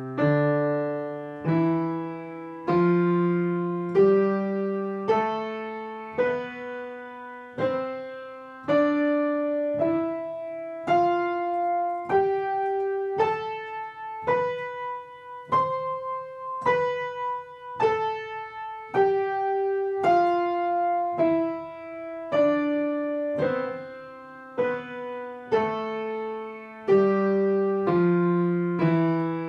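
A piano scale played slowly, one note at a time at about 0.7 s intervals. It climbs step by step to a top note about halfway through, then comes back down. It is the slow practice of scales, which is meant to build speed.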